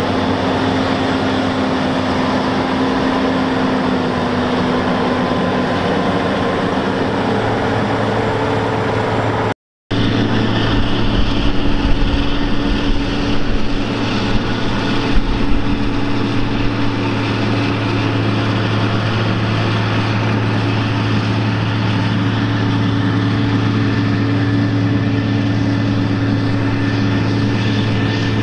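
Caterpillar Challenger tracked tractors' diesel engines running steadily, pulling scraper pans. The sound cuts out for a moment about ten seconds in and comes back with a deeper, steadier engine note, with a few knocks soon after.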